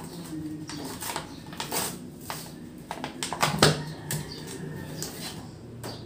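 Stiff clear-plastic blister packaging clicking and crackling as it is pried open by hand to free a motorcycle brake shoe, with one louder snap about three and a half seconds in.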